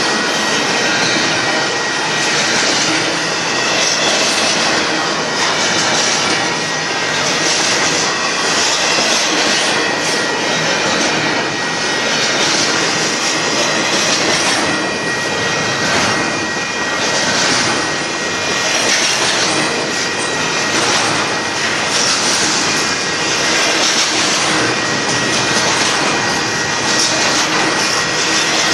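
Freight train of container cars rolling past: the steady loud rush of steel wheels on rail, with a thin steady high whine and regular pulses of wheels passing over the rail.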